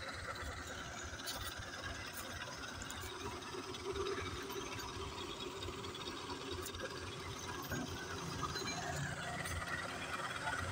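Diesel farm tractor engines running steadily with a rapid, rattling low beat.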